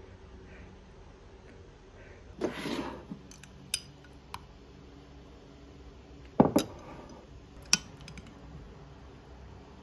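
Metal spoon scraping and clinking against a glass mug of yogurt: a short scrape about two and a half seconds in, then a few sharp clinks, the loudest a quick double clink past the middle.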